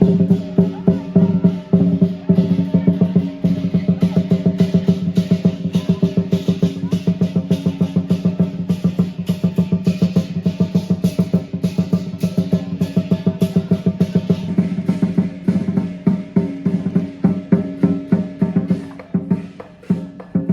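Lion dance percussion: a large lion drum beaten in a fast, even rhythm of about three to four strokes a second, with cymbals crashing on the beat and a gong ringing underneath.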